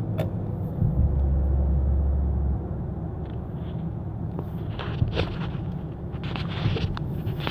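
Vehicle interior noise during acceleration on a test drive: a steady low rumble, with a strong low drone about a second in that lasts about a second and a half, then a few light clicks near the end.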